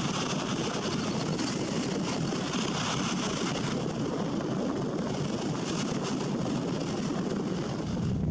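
Small lake waves breaking and washing up a sandy beach: a steady, unbroken rushing surf.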